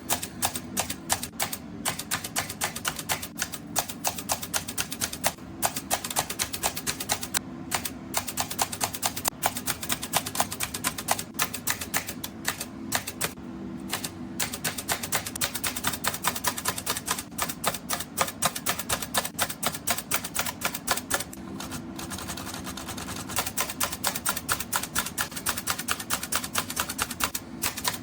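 Olivetti Lettera 62 manual typewriter being typed on: quick, irregular type-bar strikes, several a second, broken by a few short pauses. Soft background music runs underneath.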